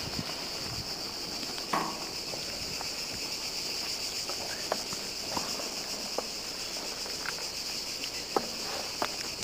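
Steady high-pitched buzz of cicadas singing, with scattered brief clicks and knocks over it.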